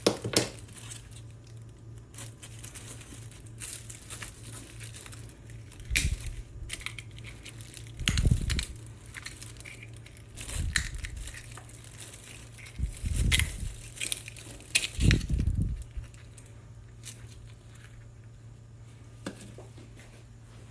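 Pliers crunching and snapping at the edge of a small oyster's shell to break an opening for the knife, with scattered sharp clicks of shell and five louder crunches a couple of seconds apart. A steady low hum runs underneath.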